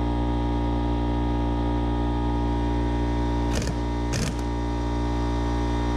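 Electric impact wrench hammering steadily on a long socket extension, loosening the pressure sensor from a Toyota/Lexus hydraulic brake booster (brake master cylinder) assembly. There are a couple of sharper knocks just past halfway.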